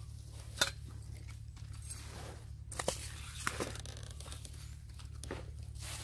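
Plastic bag crinkling and rustling as it is handled, with a few sharp clicks in between.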